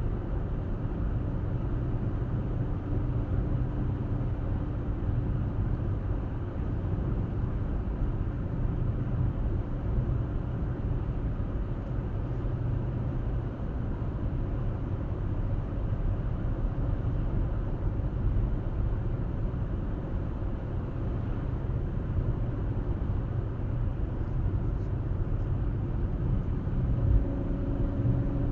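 Car driving at a steady pace: an even, low rumble of road and engine noise, with a faint steady hum showing at the start and again near the end.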